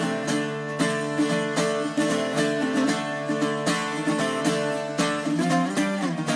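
Instrumental background music on plucked strings: a steady run of picked notes, with a few notes sliding down in pitch near the end.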